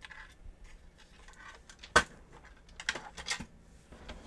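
Small hard parts being handled: scattered light clicks and rattles, with one sharp knock about two seconds in and a few more clicks a second later.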